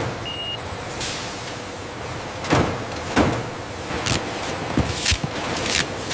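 Factory machinery: a steady din broken by a series of sharp hissing strokes, irregularly spaced.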